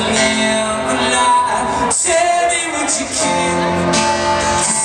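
Live acoustic guitar strumming with a man singing over it, a rock band's stripped-down song played to a concert crowd.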